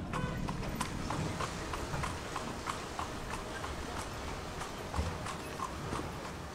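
Horse hooves clip-clopping in a steady rhythm, about three sharp strikes a second, over a low background rumble.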